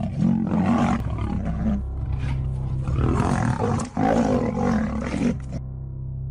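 A big cat roaring, several long, deep roars one after another, which stop about a second before the end.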